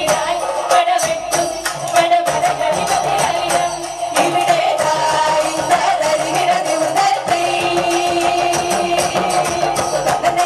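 A group of women singing a Malayalam folk song (nadanpattu) into microphones, over a fast, steady hand-percussion beat.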